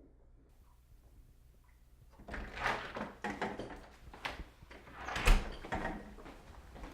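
A door being handled, opened and closed: a run of knocks and clatters starting about two seconds in, the loudest a sharp bang a little after five seconds.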